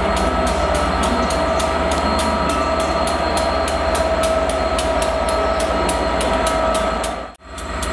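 British Rail Class 67 two-stroke V12 diesel locomotive running as it moves along the platform hauling coaches, a steady engine beat with a high whine held over it. The sound drops out abruptly near the end.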